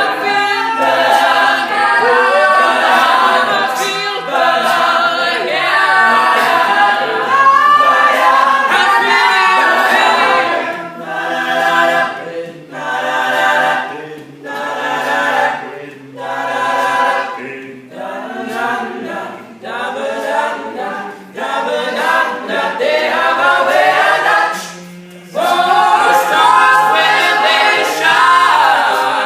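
All-male a cappella group singing close-harmony chords with no instruments. For a stretch in the middle the voices sing short, detached chords about every second and a half. They drop back briefly near the end, then come in again at full strength.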